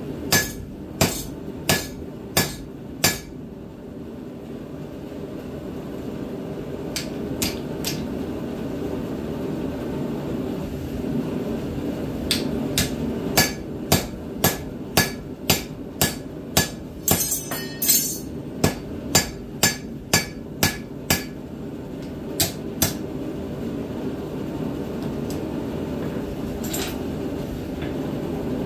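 Hand hammer striking a red-hot steel tomahawk head on the anvil: five quick blows at the start, then a long run of about twenty blows at roughly two a second in the middle. A steady low roar runs underneath.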